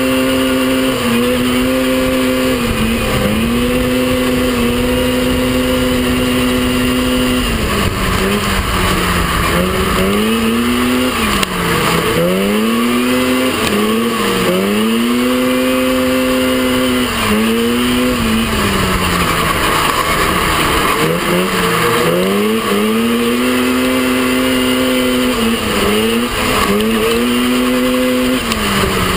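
Off-road racing mini buggy's engine running hard, heard from on board. Its pitch holds steady at first, then repeatedly dips and climbs back every few seconds as the driver lifts off and accelerates again, over a constant rush of wind and dirt.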